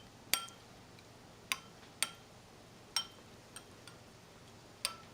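Kitchenware clinking: about half a dozen sharp, ringing clicks of metal or glass, spaced a second or so apart.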